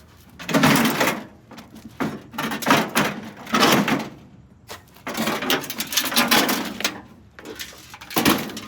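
Sheet-metal microwave casing being handled and pulled apart: a series of scraping, rattling metal bursts, each around a second long, with short pauses between.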